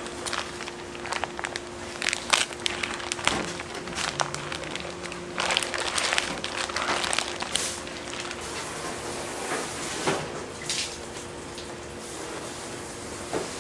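Kitchen work sounds: scattered clicks, knocks and short scrapes of utensils and dishes, over a steady hum that stops near the end.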